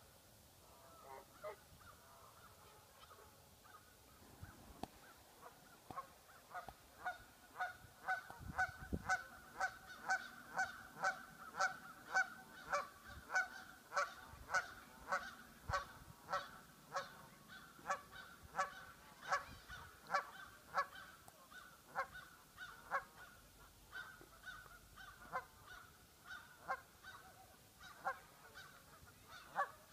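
A goose honking over and over at an even pace, about one and a half short honks a second. The honks grow louder partway in and fade again near the end.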